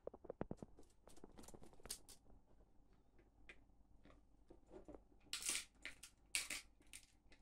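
Dog chewing a fur-covered rabbit ear treat: a run of short crunches and clicks as it bites, with the loudest crunches about five and a half seconds in.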